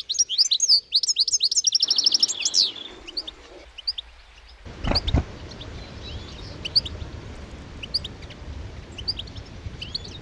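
Small wild birds chirping: a fast twittering run of high notes for the first few seconds, then scattered single chirps. A dull thump about five seconds in.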